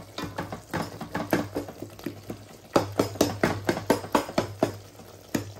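Wooden spoon mashing and stirring thick cooked tomatoes in a metal pot, with irregular knocks and scrapes of the spoon against the pot, several a second.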